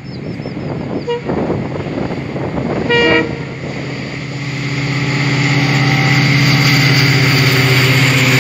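Indian Railways diesel locomotive sounds a short horn blast about three seconds in, then its diesel engine rumble swells steadily louder as the train approaches at speed and draws level.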